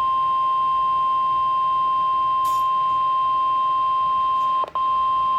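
NOAA Weather Radio 1050 Hz warning alarm tone coming from a Midland WR120 weather radio's speaker. It is one steady high-pitched beep, broken by a brief dropout near the end, sent as the Required Weekly Test of the alarm.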